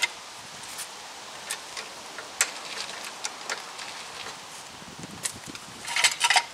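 Metal clicks and clanks of a steel jack stand being positioned and set: scattered light ticks, then a quick burst of rattling clanks with a brief metallic ring near the end.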